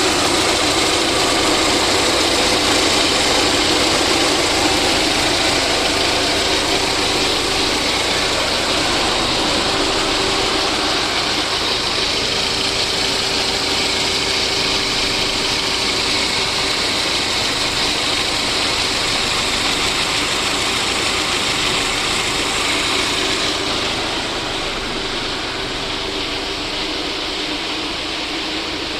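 Freshly rebuilt VAZ 2109 (Lada Samara) four-cylinder petrol engine idling steadily after a full overhaul. About three-quarters of the way through it gets slightly quieter and the high hiss fades.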